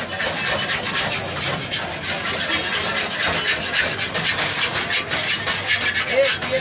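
Rapid, repeated scraping and rubbing at a cast-iron chapti pan on a gas burner, as the cook works the pan with a cloth in his hand while the pitha cooks.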